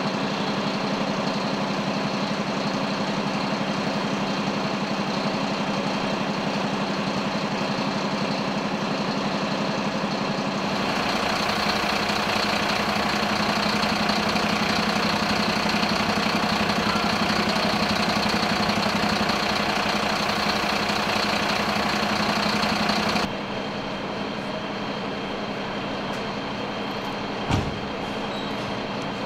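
Heavy engine idling steadily, with a constant hum that changes abruptly twice, and one short click near the end.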